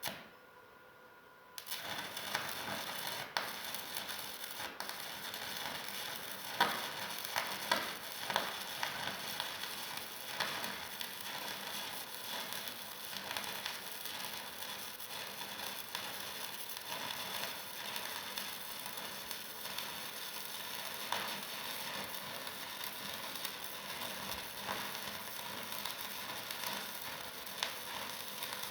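Electric arc welding: the arc is struck about a second and a half in and then burns with a steady crackling sizzle, with occasional sharper pops.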